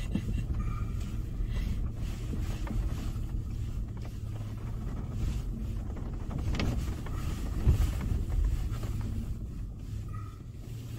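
A Toyota FJ Cruiser's V6 engine and tyres make a steady low rumble as it drives over a rough off-road track. A few knocks from bumps come through, the loudest about three-quarters of the way in.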